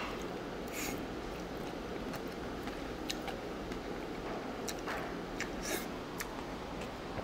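A man slurping and chewing noodles, with a few short slurps over a steady room hum.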